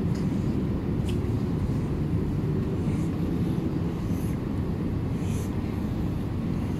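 Steady low background rumble with a few faint light ticks scattered through it.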